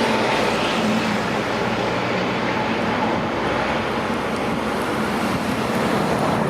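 Landing jet airliner's engines running, a loud, steady rushing noise.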